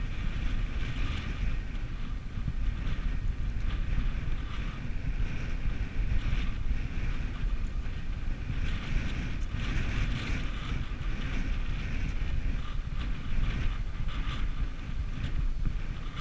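Wind buffeting the microphone of a camera on a moving bike, a steady rumble, with a rough crackling rattle from the tyres and bike rolling over a dirt and gravel track.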